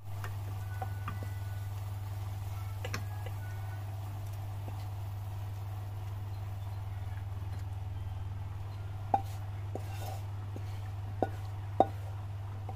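Wooden spatula scraping and tapping against a non-stick wok and a plastic plate while cooked eel is served out, with scattered light clicks and a few sharper knocks near the end, over a steady low hum.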